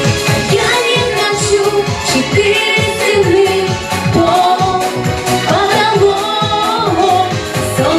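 A song: a voice singing over music with a steady beat.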